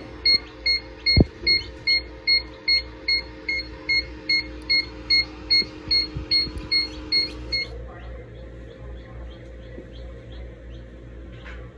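Repeated electronic beeping, about two and a half short beeps a second, which stops suddenly about eight seconds in, over a low steady hum. A single low knock comes about a second in.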